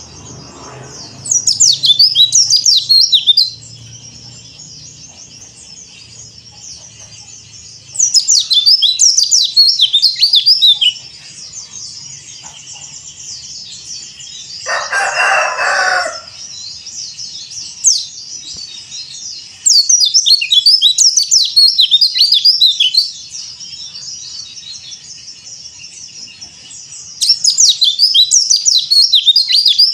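White-eye (pleci) of the yellow-breasted Bali type singing: four loud bursts of fast, high, tumbling twittering notes, each two to three seconds long, over a steady high background twitter. About halfway through comes a lower, harsher call lasting about a second and a half.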